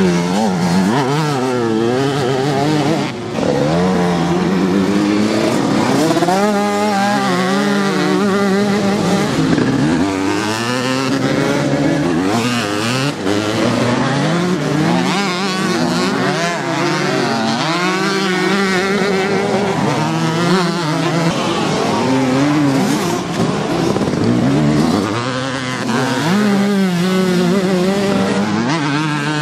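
Several motocross dirt-bike engines revving hard on a race track. Their pitch climbs and drops again and again as the riders open and shut the throttle and shift gears, with more than one bike heard at once at times.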